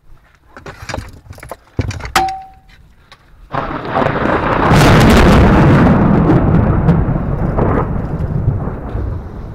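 A few handling knocks and clicks and a short beep at about two seconds, then a loud roll of thunder that breaks in suddenly at about three and a half seconds, peaks a second later and slowly rumbles away.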